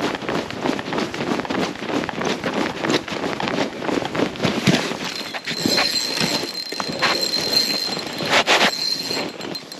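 Hurried footsteps crunching through trampled snow, one quick step after another. A thin, steady high whine comes in about halfway and holds until near the end.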